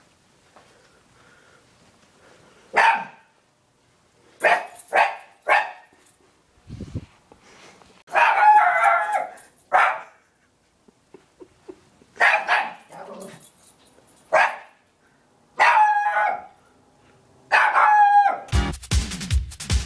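Small dog barking repeatedly in short single barks and quick pairs, with a longer drawn-out bark about eight seconds in. Music with a steady beat comes in near the end.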